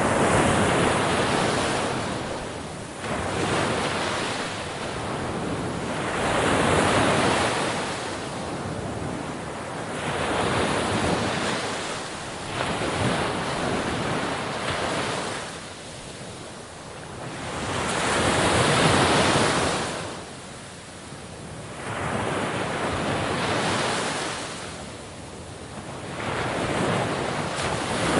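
Ocean waves breaking on a shore: a continuous rushing wash that surges and ebbs, a wave every few seconds.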